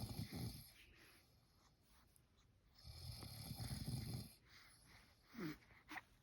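A man snoring quietly with slow, regular breaths: one long snore at the start and another about three seconds later. Near the end comes a short falling whine.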